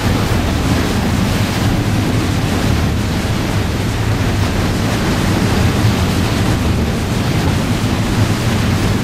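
Motorboat under way at speed: churning wake water and wind on the microphone over a low, steady engine drone.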